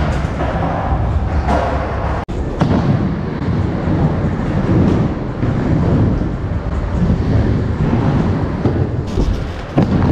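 Skateboard wheels rolling over wooden ramps and a wooden bowl, a steady low rumble with a few sharp knocks of the board.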